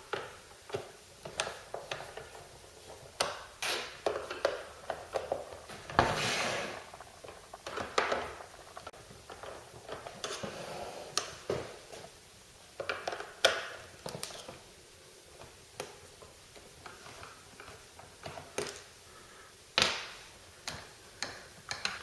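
Screws being undone with a crosshead screwdriver from the plastic base of a steam mop: scattered clicks and knocks of the screwdriver and plastic casing, with a few short scrapes.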